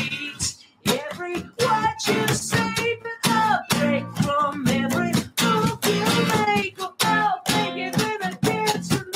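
Live song with a strummed acoustic guitar and a singing voice.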